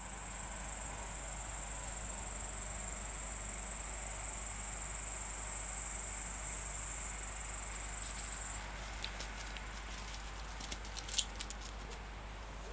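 Insect chirring, a steady high-pitched buzz, which stops suddenly about two-thirds of the way through. After it come a few short clicks and rustles, one sharper click standing out near the end.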